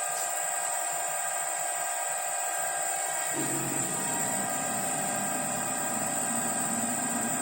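CNC milling machine's spindle motor, on a variable speed drive, running at about 1,000 RPM with a steady high whine. About three seconds in, a lower drone joins it as the servo-driven axes start moving under the G-code program.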